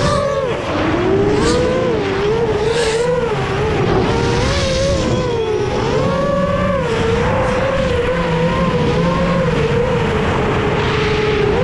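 Brushless motors and propellers of an X-class racing drone on a Cannonball frame, heard from its onboard camera: a loud whine whose pitch keeps rising and falling with the throttle in fast low flight, over a rush of air noise.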